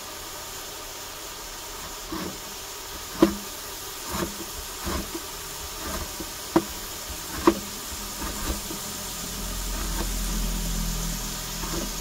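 Kitchen handling sounds: scattered knocks and clicks of utensils and containers while meat is being mixed, about seven in all. A low steady hum comes up about nine seconds in.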